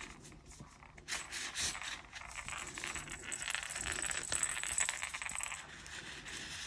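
The rattle insert inside a crocheted giraffe's head rattling as the toy is turned and handled: a dense run of small jingling clicks from about a second in until near the end.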